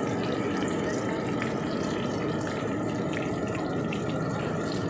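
Battered potato chops deep-frying in hot oil in an iron kadai: a steady sizzle with scattered small pops and crackles.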